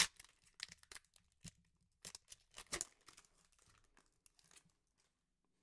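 Foil wrapper of a Pokémon card booster pack being torn open and crinkled: a run of sharp rips and crackles, loudest at the start and again about two and a half seconds in, dying away after about four and a half seconds.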